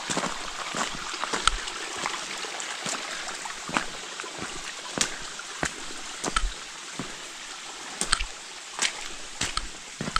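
A hiker's footsteps, about one to two steps a second, tramping through mud and shallow water on a wet, rocky trail, over a steady wash of running water.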